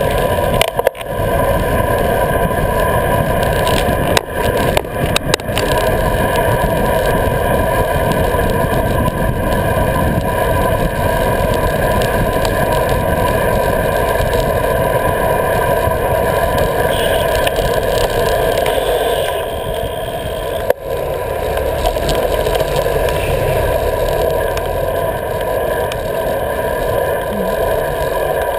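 Steady rush of wind over an action camera and tyre noise on asphalt while riding a road bike, with a few brief knocks from bumps in the road.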